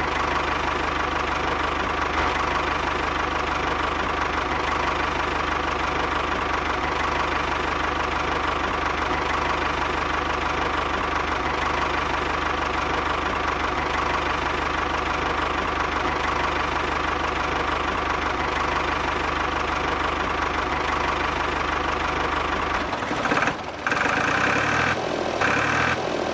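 A small engine running steadily at idle with a regular knocking beat. The sound changes and drops about three seconds before the end.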